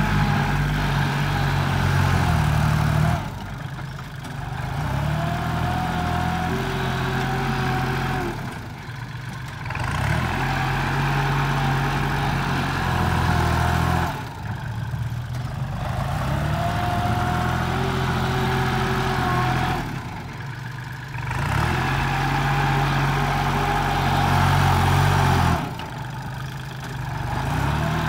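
Kubota farm tractor's diesel engine working under load as it pushes soil with a front dozer blade. The engine note comes up strong and then eases off in a repeating cycle about every five to six seconds, with a light whine over it while it pulls.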